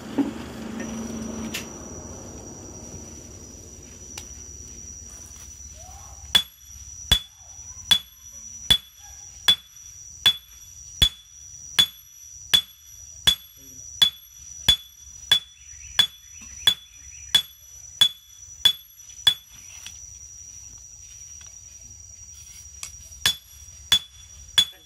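Hand hammer forging a red-hot steel hoe blade on an anvil: sharp, ringing blows at a steady pace of about four every three seconds, starting about six seconds in, stopping briefly, then resuming near the end.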